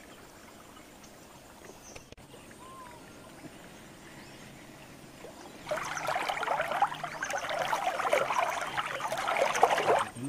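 Faint outdoor quiet, then about five and a half seconds in the trickling and lapping of river water starts suddenly, close by, and runs for about four seconds before cutting off.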